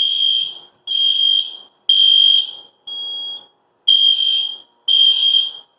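Edwards Genesis fire alarm horn sounding on its low-volume setting after a pull station has been pulled: a high-pitched, very loud tone pulsing about once a second, with an occasional weaker pulse.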